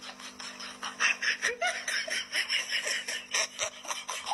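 A person laughing softly under their breath: quick breathy snickers with a few short voiced giggles about a second and a half in.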